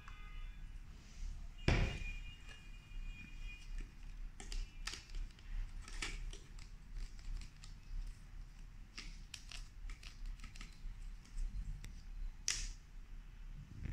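Hard plastic parts of a cordless stick vacuum's dust cup and cyclone assembly clicking and knocking as they are pulled apart and handled, with scattered clicks and a louder knock about two seconds in.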